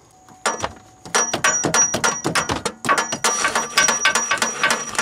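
A hammer rapidly tapping on the failing starter motor of a 2003 Pontiac Grand Am GT: quick metallic taps with a ringing tone, starting about half a second in and coming faster, about five or six a second, from about three seconds in. The tapping is meant to jar a stuck starter into cranking.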